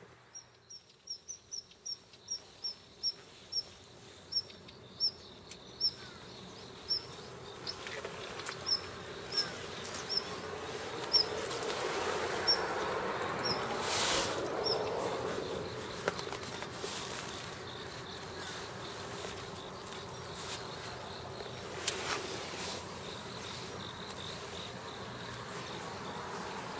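A series of short, high chirps at one pitch, quick at first and slowing to about one a second before fading out about halfway through. Near the middle there is a brief brushing rustle close to the microphone.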